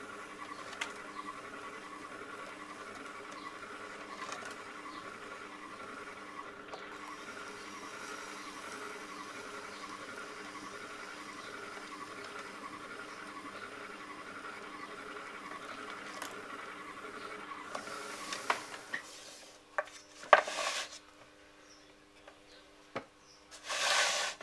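A potter's wheel spinning while a trimming tool scrapes the outside of a clay pot, a steady scraping over the wheel's hum. Near the end the scraping stops and a few knocks and short handling noises follow.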